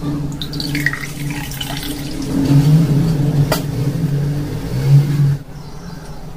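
Water poured from a stainless steel jug into a glass, its pitch rising as the glass fills over the first two seconds. Under it runs a low steady hum that grows louder and cuts off about five seconds in, with one sharp click midway.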